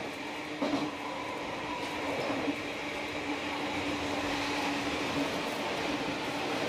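JR Shikoku 1000 series diesel railcar heard from inside while running along the line: a steady engine drone over wheel and running noise, with a brief clatter about half a second in.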